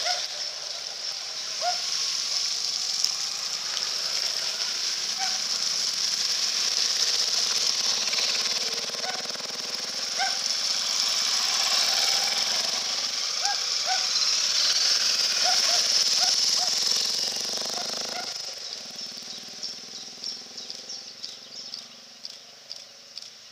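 Motorcycles riding one after another through a shallow ford, engines running and tyres splashing through the water, over a steady rush of running water. The engines and splashing fade out about three-quarters of the way through, leaving the running water.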